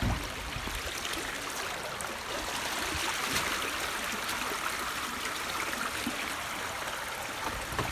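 Rainwater running fast along a street gutter: a steady rushing, splashing flow, a little louder from about two seconds in.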